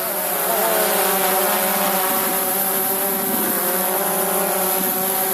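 Quadcopter drone flying close by, its propellers making a steady buzz of several tones that waver slightly in pitch, growing a little louder about a second in as it comes nearer.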